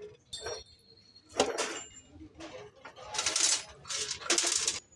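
Heavy metal exhaust parts on a Hino truck engine's cylinder head clinking and scraping as they are fitted by hand: a ringing clink, a sharp knock about a second and a half in, then two longer metal scrapes near the end.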